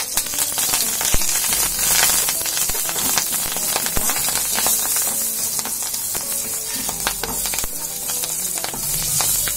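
Betel leaves and curry leaves sizzling in hot oil with mustard seeds in an aluminium kadai, stirred with a wooden spatula, with scattered small crackles.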